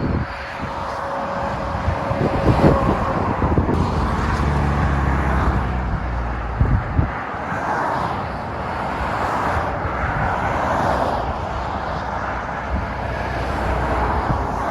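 Motorway traffic passing at speed: lorries and cars, tyre and engine noise swelling and fading as each goes by, with a heavy truck's low engine drone a few seconds in.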